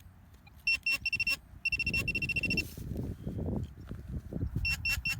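Metal-detecting pinpointer beeping in short high pips, which quicken into a rapid run about two seconds in as it closes on a buried buckle, then come back briefly near the end. Soil crumbles and rustles under the digging hands in between.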